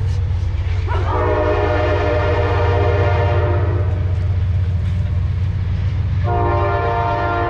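Train passing with a steady low rumble, its horn sounding two long blasts of a several-note chord, the second starting near the end. The horn is sounded for a road crossing.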